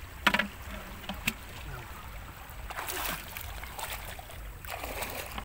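Water splashing and sloshing as someone wades through shallow water, with a few short, louder splashes, the sharpest about a quarter-second in.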